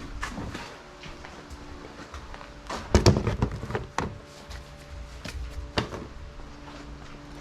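A few knocks and clunks of things being handled, the loudest cluster about three seconds in and single knocks near four and six seconds, over a faint steady hum.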